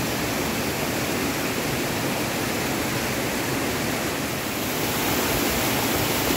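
Fast-flowing river water rushing steadily, a continuous even hiss of water, a little louder near the end.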